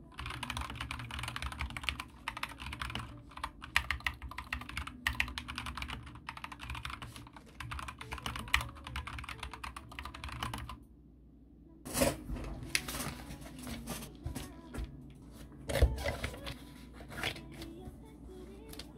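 Typing on a computer keyboard: a fast run of keystrokes for about ten seconds, a short pause, then scattered clicks and taps, over a low steady hum.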